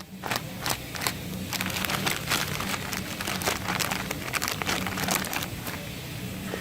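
Plastic packaging of a new CV boot kit crinkling and crackling as it is handled and opened, a quick run of crackles that thins out about five and a half seconds in, over a steady low hum.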